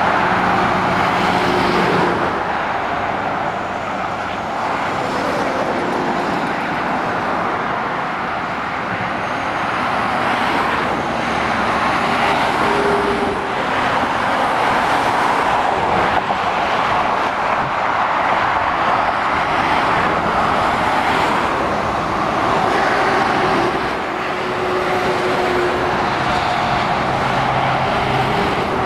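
Steady motorway traffic: articulated lorries and cars passing below, a continuous rush of tyre and road noise that swells and eases as each vehicle goes by, with the low drone of lorry engines at times.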